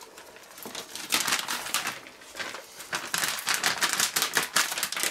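Gloved hand stirring grated cheese through spätzle in a plastic bowl: quick crackly rustling that starts about a second in, eases briefly, then picks up again.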